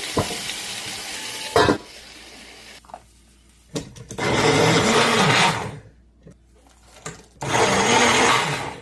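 A countertop blender run in two short bursts about three seconds apart, puréeing cooked tomatoes, onion, garlic and bell pepper into soup. Before it, a pan of vegetables sizzles, ending in a knock.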